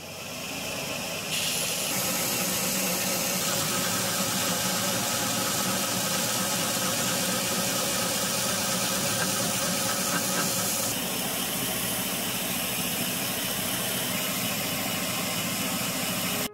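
Belt grinder running with a steel knife blade pressed against the moving abrasive belt: a steady, loud grinding hiss over the machine's hum. It swells over the first second or so and cuts off suddenly at the end.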